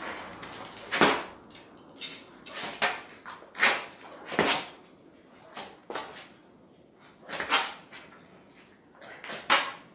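A longsword swishing through the air on a series of cuts from above, the middle and below, about eight sharp swishes at irregular intervals.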